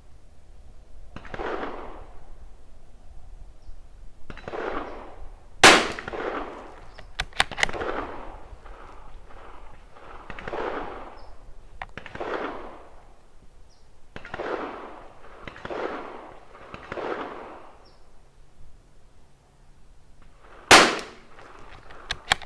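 Two sharp shots from a Tikka T1x .22 LR bolt-action rifle, about fifteen seconds apart, with a few fainter clicks after the first. Between the shots a soft whooshing noise comes and goes about every second and a half.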